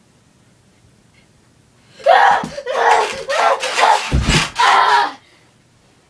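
A person screaming and yelling without words in a string of loud bursts starting about two seconds in, with a heavy thump partway through, as if struggling or being attacked.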